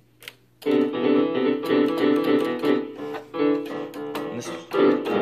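Casio electronic keyboard played by hand: a short tune of notes and chords starts just under a second in, with a brief break a little past the middle.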